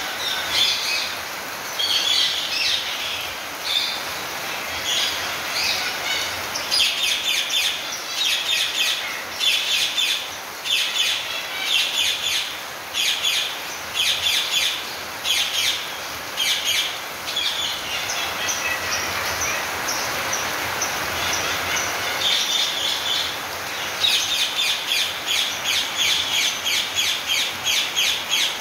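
Ring-necked parakeets calling in an aviary: harsh, rapid squawks repeated about once a second, thinning out for a few seconds past the middle, over a steady hiss of rain.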